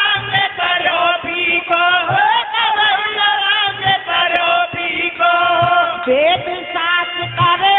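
A man singing a devotional bhajan into a microphone, amplified through a PA, in long held, chant-like lines, with a low drum stroke about once a second.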